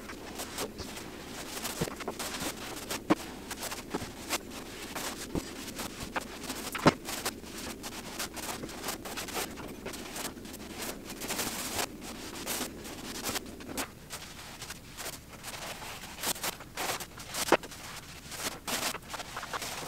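Paintbrush scraping and swishing as primer is brushed onto a wall along the ceiling line, with scattered clicks and knocks from handling the brush and the primer container, over a low steady hum that stops about fourteen seconds in.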